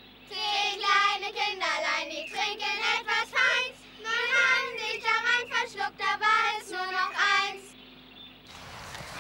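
Children's high voices singing a short tune in phrases with brief breaks, stopping about a second and a half before the end, after which only a faint outdoor background noise remains.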